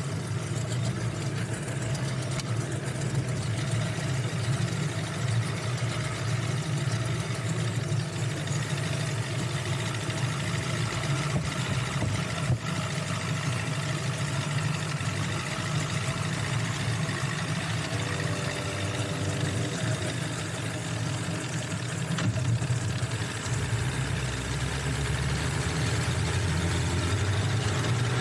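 1996 Force 120 hp inline four-cylinder two-stroke outboard motor running steadily at low speed, picking up a little near the end.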